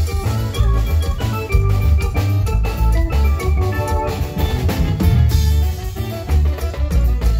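Live band playing an instrumental passage: drum kit keeping a steady beat under a heavy bass line, with guitar and keyboard organ chords, loud and continuous.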